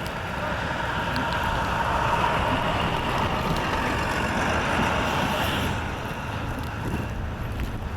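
A motor vehicle running on a snowy road, its noise swelling through the middle and easing off near the end, against a steady rush of storm wind.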